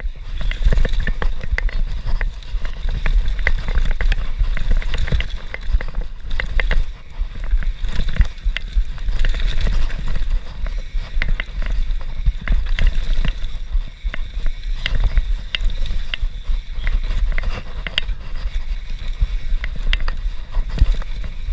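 Onboard sound of a YT Industries Capra CF full-suspension mountain bike descending a dirt forest trail at speed: heavy wind rumble on the camera microphone, tyres on dirt and leaves, and a steady stream of rattles and knocks from the bike over rough ground.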